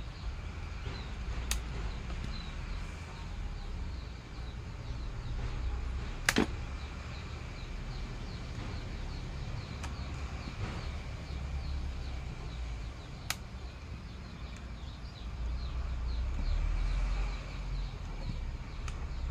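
Handling sounds as a rubber grip is worked onto a cricket bat handle: a few sharp clicks or snaps, the loudest about six seconds in, over a low rumble and faint high chirping.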